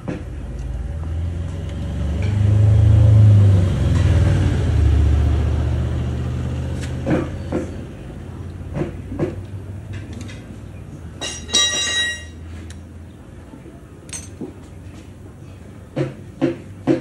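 Low vehicle-engine rumble that swells over a couple of seconds and fades away, with scattered metallic clicks from hand work on a motorcycle engine's clutch side. A brief high-pitched tone sounds just after the middle.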